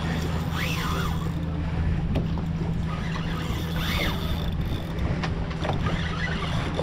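Boat engine running at a steady low hum, with wind and water noise. Two short rising-and-falling sounds come through, about a second in and again near four seconds.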